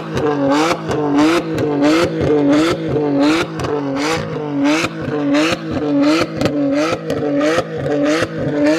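BMW N52 straight-six revved in quick, repeated throttle blips, two to three a second, through an exhaust with the primary and secondary catalytic converters gutted and the resonator and muffler deleted, essentially a straight pipe.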